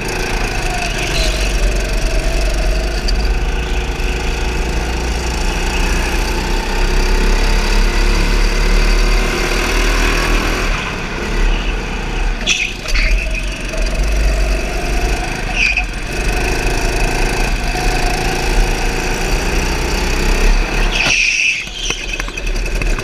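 A go-kart's motor runs steadily at speed, with a few short high squeals in the second half.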